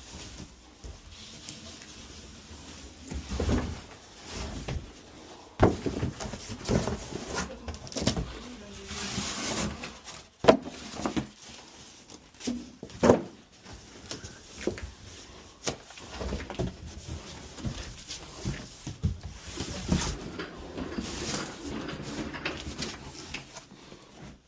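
Irregular knocks and clunks of things being handled and moved, with some scraping in between.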